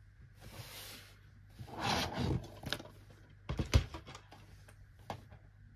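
Plastic DVD cases being handled and taken off a wooden shelf: a scraping rustle about two seconds in, then a few sharp clacks and knocks, the loudest a little after the middle.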